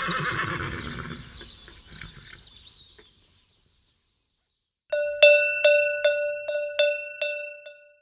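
A horse neighing, the call trailing off over the first three seconds. After a short silence, a cowbell is rung about eight times in an even rhythm, the cue to turn the page.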